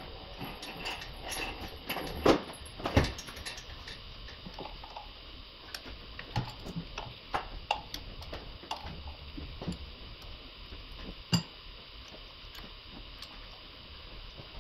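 Scattered clicks and knocks of hands working at connectors and hoses in a car's engine bay, the loudest a pair of knocks about two and three seconds in and a sharp click about eleven seconds in, over a steady hiss.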